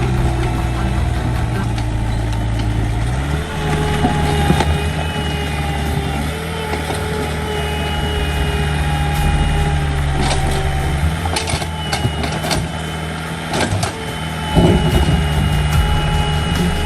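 Excavator's diesel engine running at work, its pitch stepping up a few seconds in and dropping back about two-thirds of the way through, with a thin whine above it. Several sharp knocks come in the second half.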